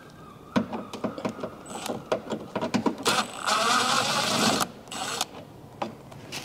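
Cordless power tool on a long extension undoing an 8mm bumper fixing inside a wheel arch: a few clicks and knocks as the socket is worked onto the fastener, then the tool's motor whirs for about a second and a half, three seconds in, as it spins the fixing out.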